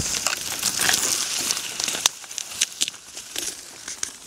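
Dry reed stems rustling and crackling as someone pushes through a reed bed, dense for the first two seconds, then thinning to scattered crackles and snaps.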